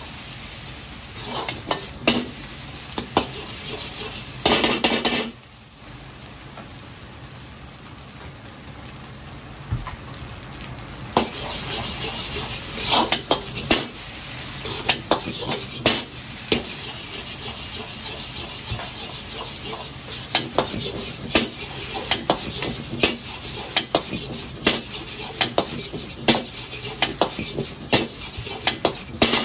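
Food sizzling and frying in a wok while a metal utensil stirs it, clacking and scraping against the pan in a run of sharp knocks. A louder burst of sizzling comes about four to five seconds in, then a quieter stretch of steady sizzling before the knocking starts again.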